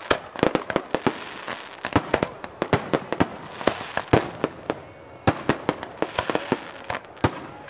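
Fireworks show: a rapid, irregular barrage of aerial shell launches and bursts, several sharp bangs a second without a break.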